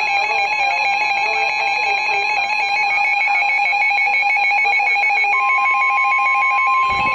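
Emergency Alert System weather radio alert: a loud, rapid electronic warble of tones switching back and forth, joined about five seconds in by a steady single-pitch alarm tone, the 1050 Hz NOAA Weather Radio warning alarm, signalling that a warning is about to be read.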